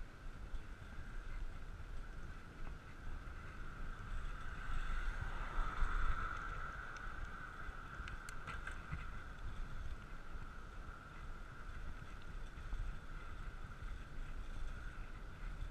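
Riding noise of a bicycle on Nimbus 700x35 Armadillo tyres: wind rumbling on the microphone under a steady hum of the tyres rolling, which swells about five seconds in. A few sharp clicks about eight seconds in.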